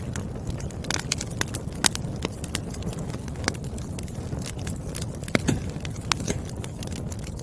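Wood fire burning with a steady low rush of flame and irregular sharp crackles and pops from the burning logs, two of them louder, at about two seconds and five seconds in.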